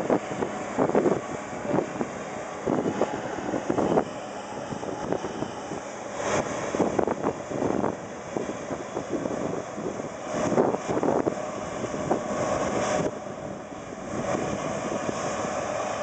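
New Holland CS6050 combine harvester running as it threshes rice, with uneven gusts of wind on the microphone.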